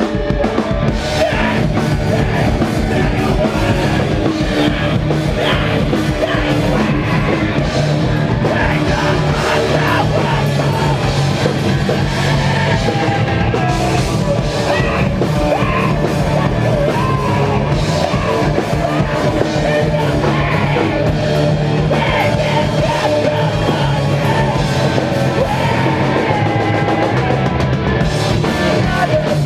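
Post-hardcore rock band playing live at full volume: a drum kit and instruments with yelled, shouted vocals over them.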